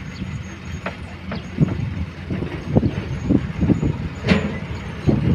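Diesel engines of a dump truck and a Komatsu excavator running, a steady low rumble with irregular knocks and rattles as the dump truck moves off over rough ground. A sharper knock comes about four seconds in.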